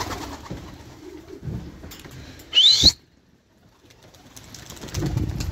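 Domestic pigeons cooing, a low call about a second and a half in and another near the end. Just before the middle comes a short, loud, high squeal, after which the sound cuts off abruptly for about a second.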